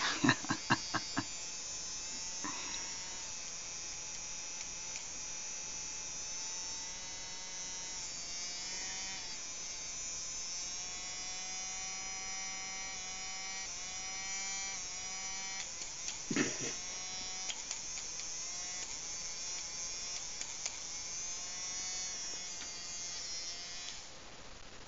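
Electric rotary pet nail grinder running with a steady high whine whose pitch wavers a little, then stopping shortly before the end. A few sharp clicks sound near the start, and a brief knock comes about 16 seconds in.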